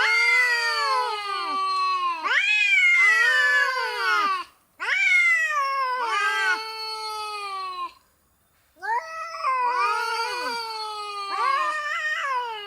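A cat meowing in a string of long, drawn-out calls of two to three seconds each, most sliding down in pitch at the end, with a short break about two-thirds through.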